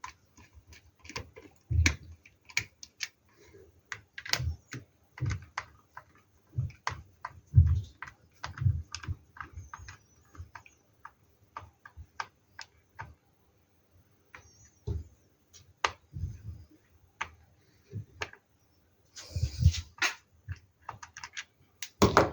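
Irregular small clicks and knocks of a screwdriver and a plastic hair dryer housing being handled while the two screws in the handle are taken out, with a louder scraping rustle of plastic about nineteen seconds in.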